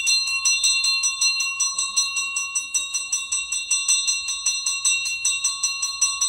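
Metal temple bell struck rapidly and without pause, several strikes a second, with its high ring held steady between strikes.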